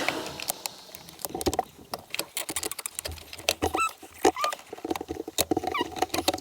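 Irregular clicks and knocks of hand tools and metal parts in an engine bay, with several short squeaks of rubber hose being twisted and worked off its fitting.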